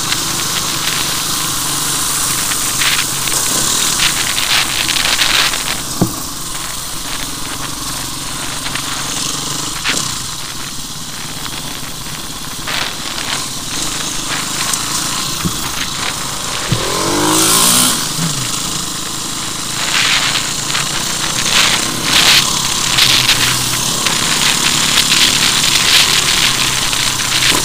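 Enduro dirt bike engine running as the bike rides over a gravel track, with constant wind hiss and scattered knocks and rattles. About seventeen seconds in, the engine revs up and falls back.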